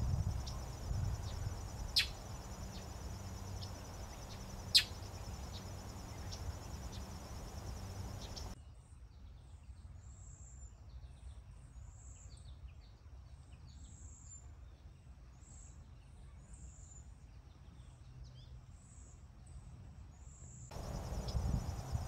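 Outdoor ambience: a steady, high, finely pulsing insect trill like crickets over a low background rumble, with two sharp clicks a few seconds apart. About a third of the way in the sound cuts to a quieter stretch of scattered faint, high, short chirps. The trill and rumble come back near the end.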